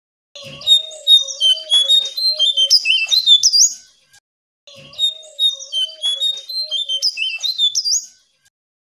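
Jongkangan songbird singing two near-identical bouts of rapid, chattering high notes with quick up-and-down slurs, each about three and a half seconds long with a short pause between. A low wavering note runs beneath the first half of each bout. It is a lure song played to coax silent caged jongkangan into singing.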